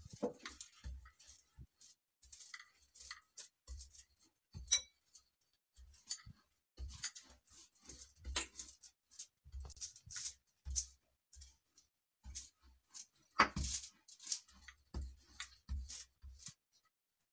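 Wooden rolling pin rolling a soft sesame, mawa and jaggery mixture flat on foil and a plastic sheet: faint, irregular crinkling and rustling with light knocks, the loudest knock about 13 seconds in.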